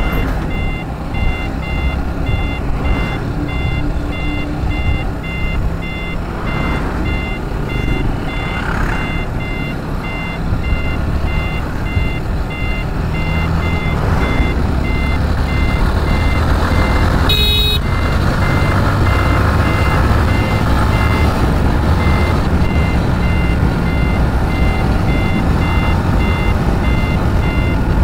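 Motorcycle riding along a highway: engine and wind rumble that grows louder about halfway through, with a steady, evenly repeating electronic beeping throughout. A single short, sharp sound with a few stacked tones cuts in about two-thirds of the way through.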